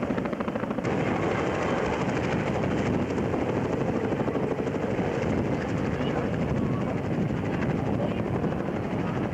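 CH-113 Labrador tandem-rotor search and rescue helicopter hovering low, its rotors beating out a steady, rapid chop.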